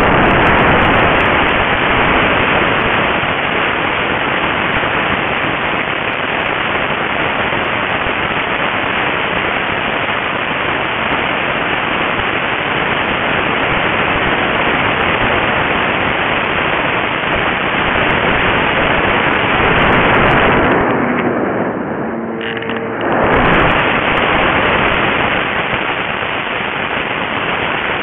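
Steady rushing noise of wind and motor picked up by a small camera carried on a model aircraft in flight. It eases briefly about three-quarters of the way through, letting a faint hum show.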